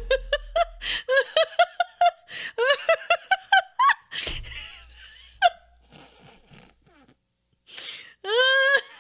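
A woman laughing hard: a fast run of short, high-pitched laughs for about four seconds, then breathless gasps that fade almost to nothing, and a high laugh rising again near the end.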